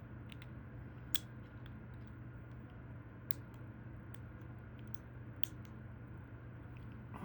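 A few faint, sharp clicks scattered over a steady low electrical hum.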